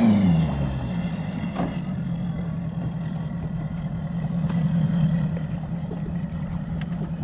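Bass boat's outboard motor running steadily. Its pitch drops over the first second, then holds level.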